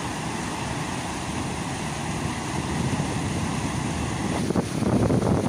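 Steady rush of water spilling over a low concrete weir and churning below it. It grows louder and choppier about four and a half seconds in.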